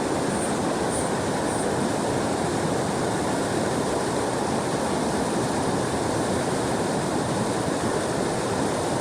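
Mountain creek water rushing steadily over rocks and logs.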